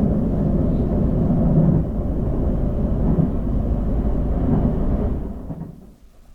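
A loud, low rumble that fades away over the last second.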